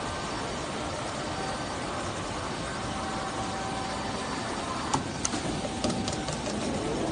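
Steady factory machinery running, with a few sharp metallic clanks about five to six seconds in.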